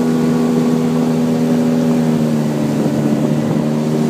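Boat's outboard motor running at a steady speed, a constant engine drone.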